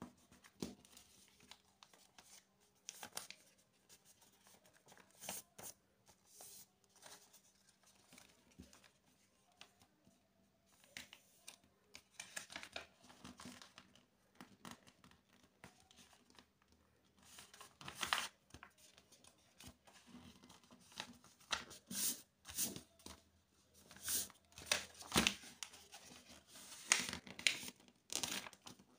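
A sheet of A4 printer paper being folded and creased by hand into a paper airplane: irregular rustling and crinkling, with sharper creasing strokes that grow louder and more frequent in the second half.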